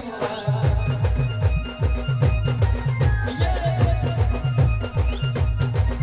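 Adiwasi band playing timli dance music: deep drum beats that fall in pitch, about two to three a second, under a high melody line.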